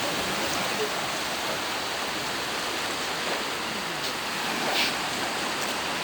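Steady rushing noise of sea waves washing on the shore.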